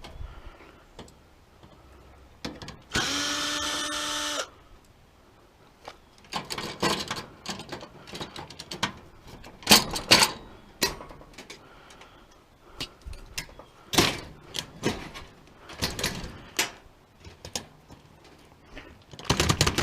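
A power drill runs steadily for about a second and a half a few seconds in, backing out fasteners on an old stove being stripped for scrap. After it come scattered metal clanks and knocks as parts are handled and pulled apart.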